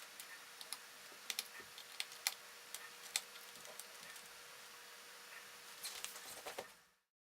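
Scattered small clicks and taps of laptop parts and tools being handled, over a steady background hiss with a faint hum. The sound cuts off abruptly about seven seconds in.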